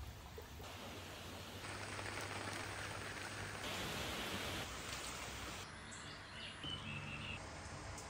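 Steady outdoor ambient hiss that shifts in level and tone at several abrupt cuts, with a few faint high tones near the end.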